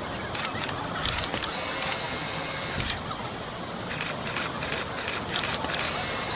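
Steady rush of water and crowd noise, overlaid by quick runs of clicking and two bursts of high hiss, each about a second long, that start and stop abruptly.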